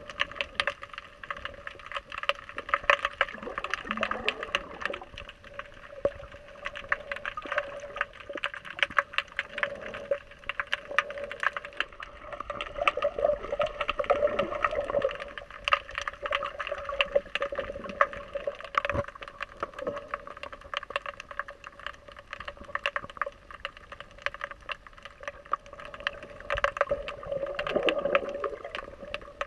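Underwater sound picked up by a submerged camera: constant fine crackling clicks over water gurgling and sloshing, with a few slow swells of water movement.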